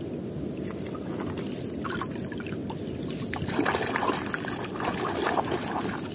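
A hand swishing and splashing through muddy water in a plastic tub. The splashing grows loudest and busiest over a couple of seconds in the second half.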